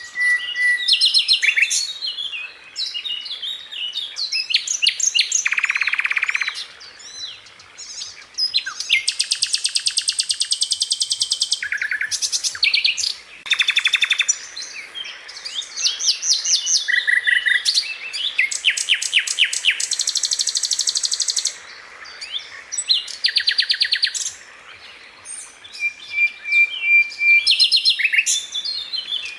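Sikatan londo flycatcher singing a fast, varied song of rapid rattling trills and ticking series, broken by short clear whistles, with brief pauses between phrases.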